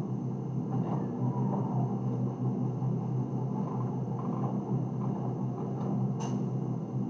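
Washing machine running with a steady low hum, with a single sharp click about six seconds in.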